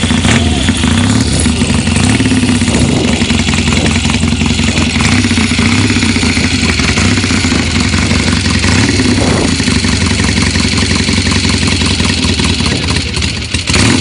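Norton motorcycle engine running steadily, held at a fast idle.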